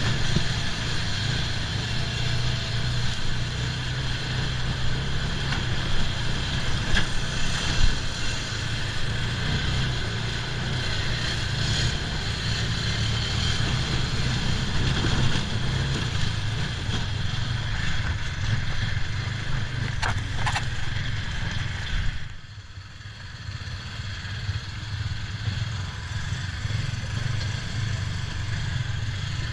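Off-road buggy engine running steadily while driving, with road and wind noise. It drops away briefly about three quarters of the way through, then picks up again.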